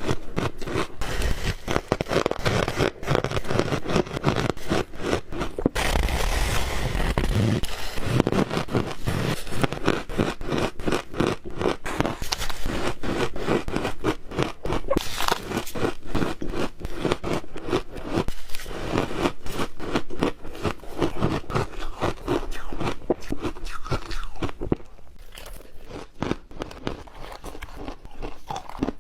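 Ice cubes being bitten and crunched between the teeth close to the microphone: a dense, continuous run of crackling, scraping crunches that gets quieter in the last few seconds.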